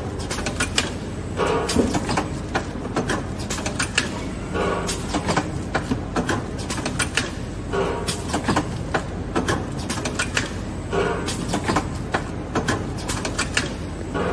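GKL-85 sealant filling and packing machine running: a continuous clatter of sharp mechanical clicks and knocks, with a denser stretch repeating about every three seconds.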